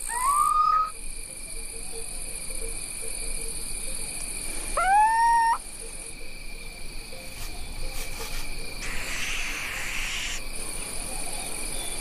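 Little owl calling three times, each a short rising hoot that levels off, over a steady chorus of crickets.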